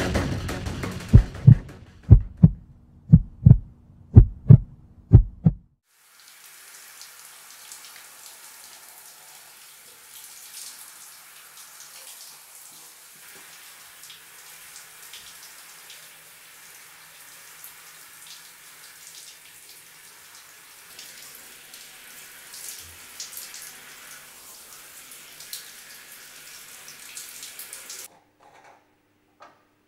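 A heartbeat sound effect: about five heavy double thumps, one a second, over a low steady hum. Then a shower running, a steady spray of water, which cuts off suddenly near the end.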